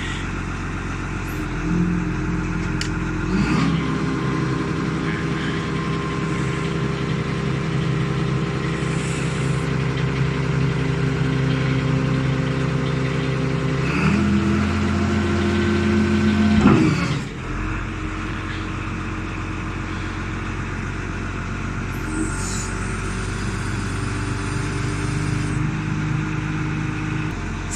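Caterpillar DP150 diesel forklift engine running under hydraulic load while the mast is worked. It speeds up about three seconds in, rises again around fourteen seconds, then drops back suddenly to a lower steady speed about three seconds later.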